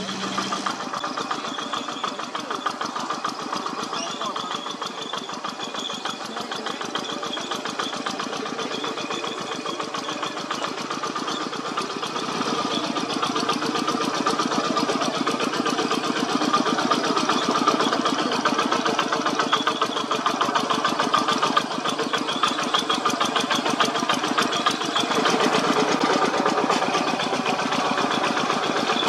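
Diesel tractor engine running steadily while ploughing soil, with a fast, even firing beat; it gets louder about twelve seconds in and again near the end.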